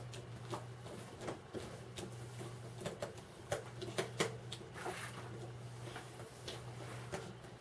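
Small screws being turned by hand with a screwdriver into a plastic toy-kit motor housing: irregular small clicks and scrapes of the screwdriver and plastic parts, over a steady low hum.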